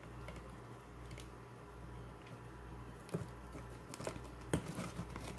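Faint handling noise of hands forcing a battery pack and its wired connector into the plastic chassis of an RC drift car: light rubbing with a few small clicks, more of them near the end. A low steady hum runs underneath.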